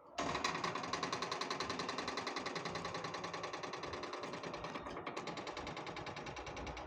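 Electric motor and hydraulic pump of an electro-hydraulic aerial lift running, a steady whine with a fast, even pulsing that starts abruptly just after the beginning.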